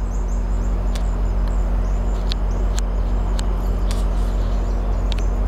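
A steady low mechanical hum, with short high chirps repeating faintly above it and a few sharp clicks scattered through.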